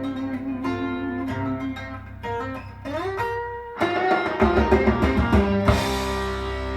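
Instrumental passage of a rock song played back on a tube-amplified hi-fi system: picked guitar notes with a slide about three seconds in, then drums and the full band come in heavier, a cymbal crash near the end, and a held chord ringing on.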